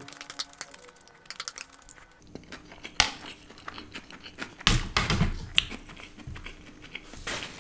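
Close-miked eating: a spoon clicking and scraping on a plate as noodles are scooped up, then chewing with many small wet mouth clicks and one sharper click about three seconds in.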